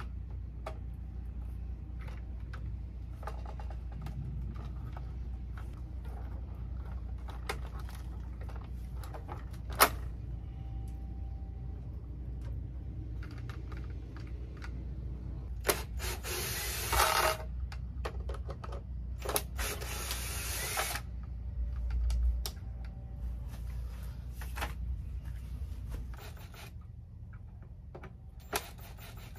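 Clicks and taps of wires and tools being worked at a sprinkler controller's terminal strip, with one sharp click about a third of the way in. Past halfway a cordless drill runs in two short bursts, then more faintly once more, over a steady low hum.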